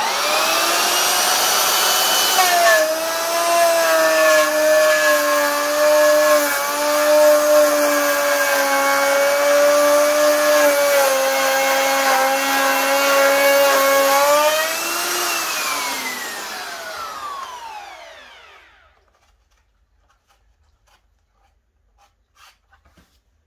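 Electric jigsaw cutting a wooden board: the motor spins up with a rising whine, runs at a steady high whine whose pitch sags slightly under the load of the cut, then is switched off about 15 seconds in and winds down with a falling whine over a few seconds.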